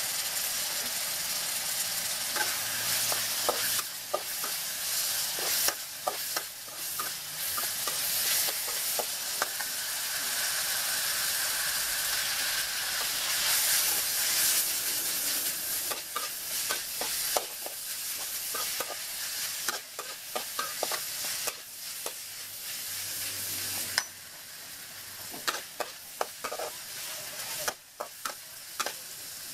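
Shrimp and noodles sizzling in a metal wok as a spatula stirs and tosses them, scraping and clinking against the pan in quick irregular strokes. The sizzle eases near the end while the scraping goes on.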